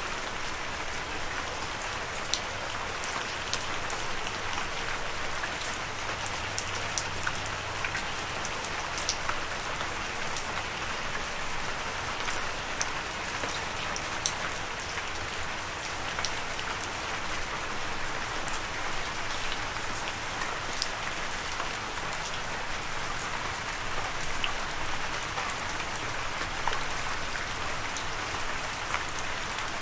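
Steady rain falling, a continuous hiss with many individual drops pattering sharply on a surface.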